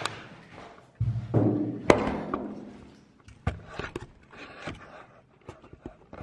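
Handling noise from a camera being moved about and set on a table: thuds and knocks with some rustling, the loudest thud and a sharp click coming about one to two seconds in, then scattered small clicks and taps.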